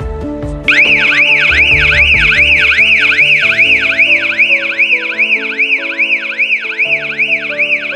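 Electronic burglar-alarm siren that starts abruptly less than a second in: a loud, fast warble sweeping up and down about three times a second, over background music.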